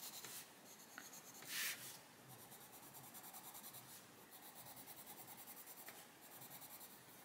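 Pasteltint coloured pencil scratching faintly on colouring-book paper in quick, even back-and-forth strokes, with one brief louder hiss about one and a half seconds in.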